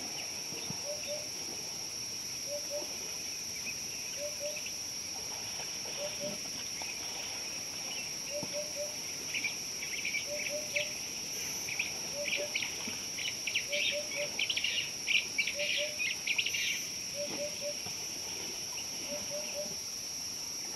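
Wild insects and birds: a steady high insect drone, one bird repeating a short low two- to three-note call about every second and a half, and a flurry of higher chirping through the middle.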